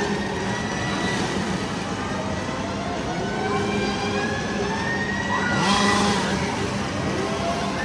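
Chainsaws running and being revved, a steady engine drone with slowly rising and falling pitch. A short, louder burst of noise comes about six seconds in.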